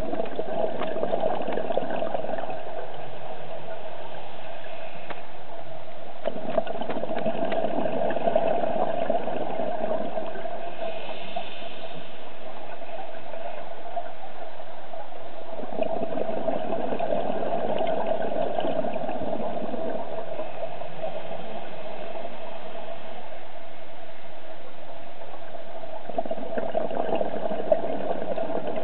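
Scuba diver's regulator breathing heard underwater: exhaled bubbles gurgling in long bursts of a few seconds, about every ten seconds, with a quieter hiss between.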